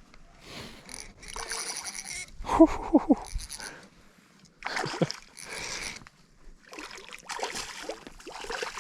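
Water splashing in irregular bursts as a hooked lake trout thrashes at the surface while it is reeled in and landed.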